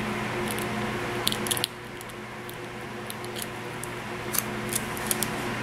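Sticky tape crackling and clicking in scattered short snaps as it is pressed onto and peeled off around a freshly stamped nail to lift stray polish, over the steady hum of an electric fan.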